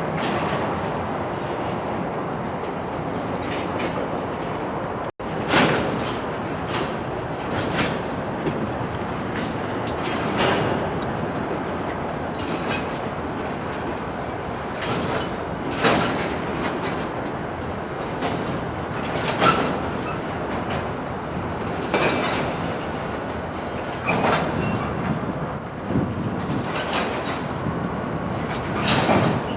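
Freight cars rolling on yard track: a steady rumble with sharp wheel clacks over rail joints every second or two, and a faint thin squeal from the wheels from about five seconds in.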